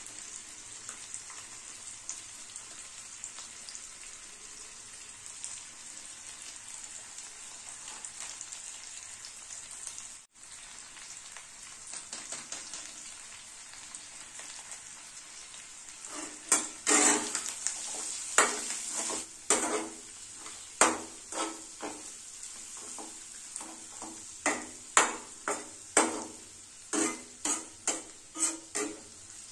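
Chicken liver frying in oil in a metal kadai, a steady sizzle. About halfway through, a metal spatula starts stirring, sending a run of sharp scrapes and clinks against the pan, roughly one or two a second, louder than the sizzle.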